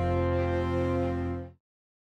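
Closing theme music ending on a held chord that cuts off abruptly about one and a half seconds in.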